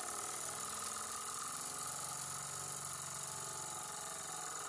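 Jensen #70 model live steam engine running steadily with a rapid, even chuff from its oscillating cylinder, the boiler not yet near full pressure.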